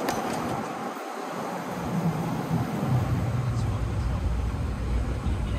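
Car driving on a town street: steady road and wind noise, with a low engine rumble growing louder about two seconds in.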